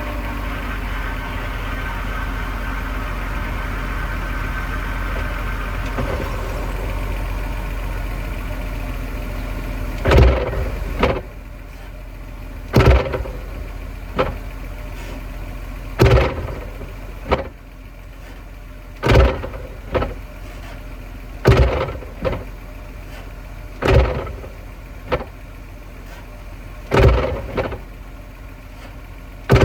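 BMW E46 engine running steadily, then the drivetrain clunks sharply about eight times at roughly three-second intervals, each clunk followed by a softer knock a moment later, as the clutch is let out quickly in gear. The clunk persists despite new differential and subframe bushings, driveshaft, guibo and centre support bearing.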